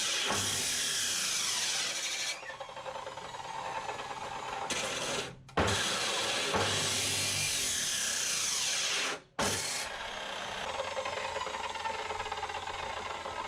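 A power tool working steel tube, a steady grinding noise. It cuts out abruptly twice, about five and nine seconds in.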